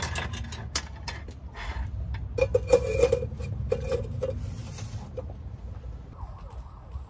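A dog whining in a few short, high-pitched pulses between about two and four seconds in. Scattered knocks and clatter come earlier, over a low rumble.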